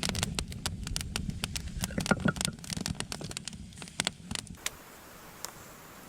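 Dense, irregular crackling and clicking over a low rumble, stopping abruptly about four and a half seconds in. After that, a faint steady hiss with a few scattered clicks.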